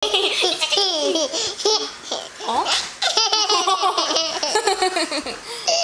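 Toddler girl laughing hard: high-pitched giggling in two long bouts, with a short catch of breath about two seconds in.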